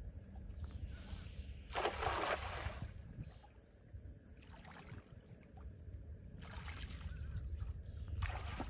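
Water splashing and sloshing in three short bursts, the loudest about two seconds in, over a low steady rumble.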